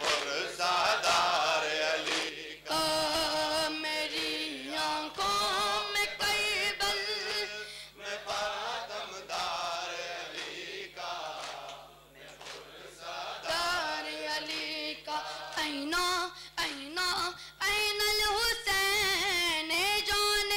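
A nawha, a Shia mourning lament, chanted by voices without instruments, with the mourners' hands striking their chests (matam) in time with the chant. The chanting dips briefly about halfway through.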